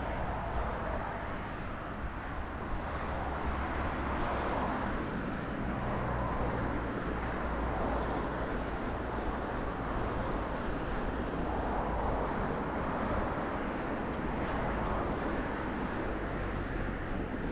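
Road traffic passing, a steady noise of car tyres and engines that swells and fades a couple of times, over low wind rumble on a chest-mounted camera's microphone.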